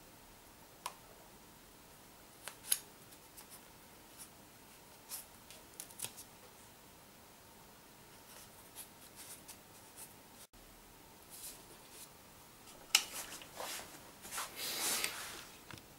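Faint handling noises of a hand-made sling signal projectile being put together: scattered light clicks and rubbing of a small white ball and a paper strip. A sharp click about 13 seconds in is the loudest sound, followed by a short rustle.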